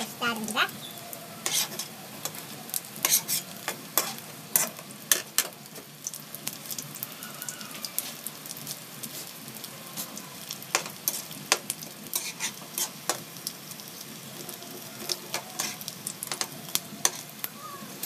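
Lumpia deep-frying in oil in a metal wok, with a steady sizzle. Irregular sharp clicks and scrapes of metal tongs against the wok and the rolls as they are turned.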